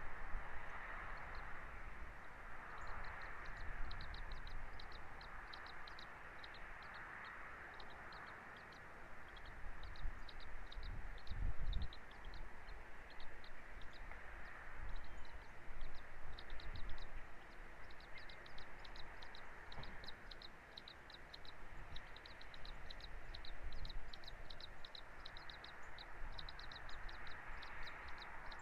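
Bird calls: many short, high chirps repeated in quick runs throughout, over a steady hiss and low rumble of wind on the microphone.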